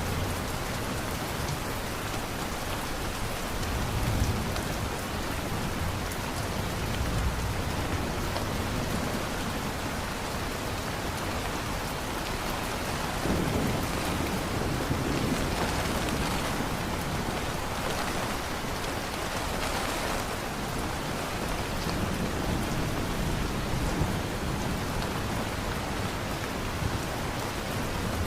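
Steady heavy rain falling on surfaces, with low rolls of thunder rumbling now and then, around 4 seconds in, in the middle and near the end.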